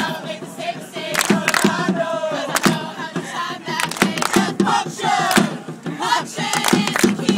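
A choir of men's and women's voices singing together, punctuated by sharp percussive hits that keep recurring.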